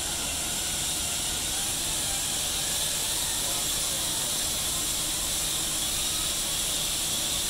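Steady hiss with a low rumble under it.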